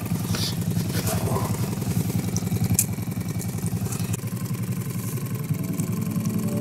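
Small outboard motor on an inflatable boat running steadily with a fast, even low chug, pushing the boat at trolling pace.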